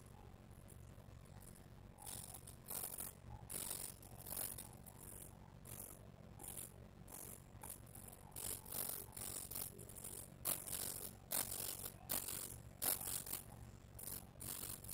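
Small hobby servo motors whirring in short, irregular bursts as they swing back and forth to follow the radio transmitter's stick. The bursts start about two seconds in and come roughly one to two a second.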